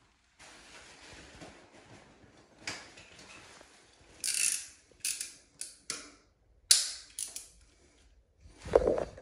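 Wallpaper being worked by hand: a plastic smoother sweeps over the paper for a few seconds. Then come several short, sharp rustles and scrapes of paper and tools, the loudest a sudden snap about seven seconds in, and a dull bump near the end.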